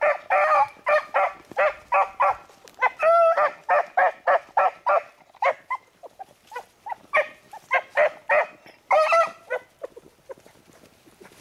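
Beagles baying on a rabbit's track: quick short bays, several a second, broken by a few longer drawn-out bawls, thinning out and fading near the end.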